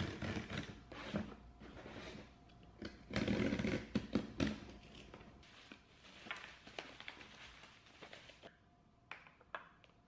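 A cardboard shipping box being opened with a box cutter: the blade slitting the packing tape, then the tape, flaps and packing scraping and rustling, loudest a few seconds in. After that, plastic bubble wrap crinkling, and a few light taps near the end.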